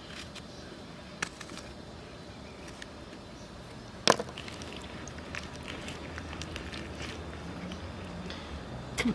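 A few scattered sharp knocks and clicks, the loudest about four seconds in and another near the end, over a low steady background rumble.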